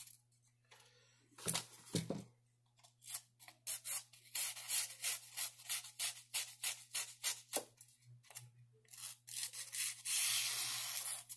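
Buck 119 knife blade drawn in a run of quick dry scraping strokes, about two a second, after two soft knocks near the start. Near the end there is one longer continuous scrape.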